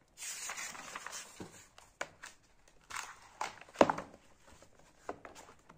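Paper rustling as the page of a printed textbook is lifted and turned by hand. There is a soft continuous rustle at first, then a few short crisp flaps and clicks of the page, the loudest just before four seconds in.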